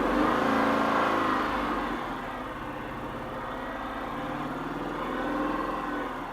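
A 5.7 L Hemi V8 in a Dodge Magnum is revved. The revs fall back after a second or two, then it idles with a slight swell near the end, failing to settle. It has a rough idle that wants to stall, which the owner suspects comes from the throttle body or cylinder 5.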